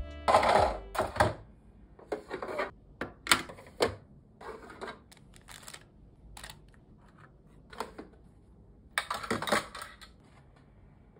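Small items being put into a white plastic desk organiser and its clear pull-out drawers: irregular clicks, taps and short rattles of hard plastic, with a longer, louder clatter about nine seconds in.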